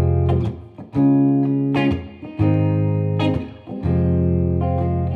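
Guitar music: a band's song intro, with full chords struck roughly once a second and left to ring between strikes.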